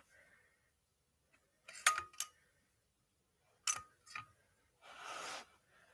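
Metal parts of a Duncan parking meter mechanism clicking and clinking as it is handled: two sharp clicks about two seconds in, with a short metallic ring, and two more near the middle. A brief scraping sound follows near the end.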